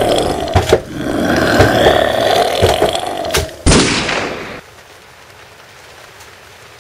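Loud rough noise that swells and fades about once a second, cut off by a single gunshot about three and a half seconds in that rings out for nearly a second, then quiet room tone.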